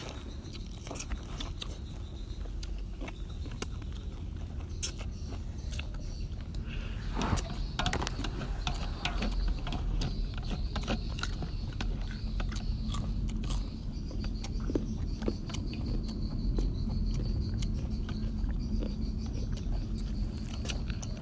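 People eating with chopsticks: crunching and chewing raw papaya salad and lettuce, with many short sharp clicks of chopsticks against a metal tray, over a steady low rumble.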